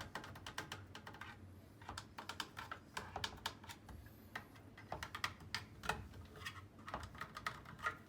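Light, irregular clicks and taps of hard objects being handled, scattered through the whole stretch.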